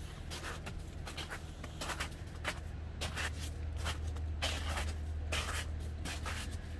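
Footsteps crunching in snow on a harbour quay, about two steps a second, over a steady low hum.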